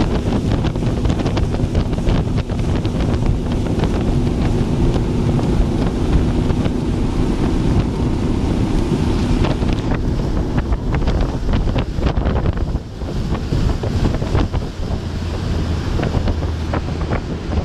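Motorboat underway: wind buffeting the microphone over a steady engine hum and water rushing along the hull. About two-thirds of the way through the high rush eases and a lower engine hum comes forward.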